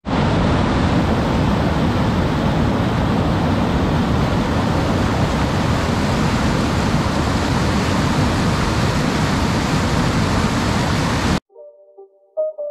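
Mountain river rushing over boulders in rapids, a steady rush of water that cuts off suddenly near the end. A few faint musical notes follow.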